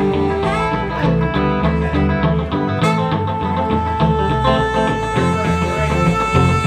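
Live band playing an instrumental break: electric guitar over a walking electric bass line, with saxophone.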